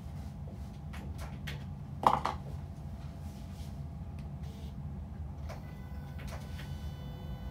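Low steady room hum with a few light clicks and one sharp knock about two seconds in.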